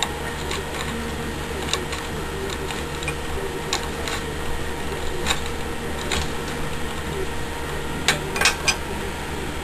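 Light metallic clicks and taps of a wrench working on a BMX pedal as it is tightened into the crank arm, scattered about once a second, with a quick run of clicks near the end, over a steady hum.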